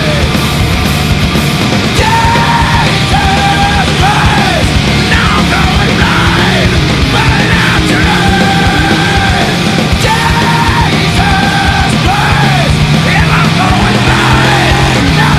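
Loud heavy rock music with yelled vocals over a full, dense band.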